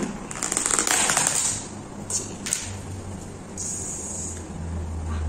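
Plastic carrier bag rustling and crinkling as a clear plastic takeaway food box is lifted out of it, with a few sharp clicks of the plastic, then a low rumble near the end.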